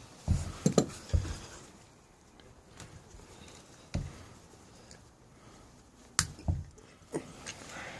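Scattered sharp knocks and clinks of hand tools against the pocket bike's engine and frame as bolts are worked loose: a quick cluster in the first second or so, then single knocks about four and six seconds in.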